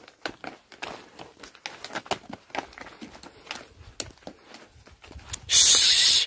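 A pack donkey's hooves and a walker's footsteps crunch irregularly on a stony mountain path. Near the end a loud hiss lasts under a second.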